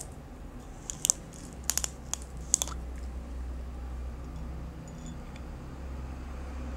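A handful of sharp clicks and crinkles of small objects being handled, bunched in the first three seconds, then only a steady low hum.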